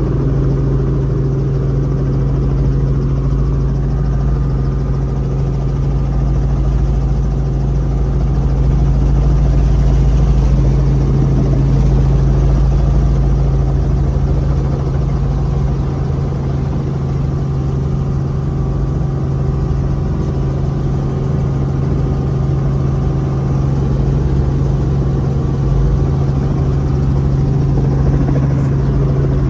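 Helicopter engine and rotor running, heard inside the cabin: a loud, steady drone with one strong low tone and a pulsing rumble beneath it.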